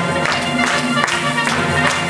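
Music with a steady beat and sustained melody notes.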